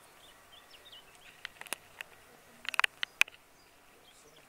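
Faint outdoor ambience with small birds chirping, broken by a cluster of sharp clicks about halfway through, the loudest near the three-second mark.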